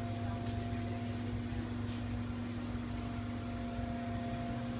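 Steady electrical hum of a small shop's equipment, holding a couple of fixed tones, with a few faint ticks of handling or footsteps.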